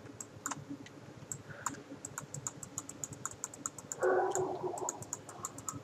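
Light, irregular clicking from a computer mouse and keyboard, with a brief murmur about four seconds in.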